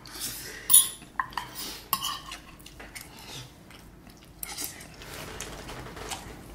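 Metal cutlery clinking and scraping on ceramic plates during a meal, with chewing in between; the sharpest clink comes just under a second in.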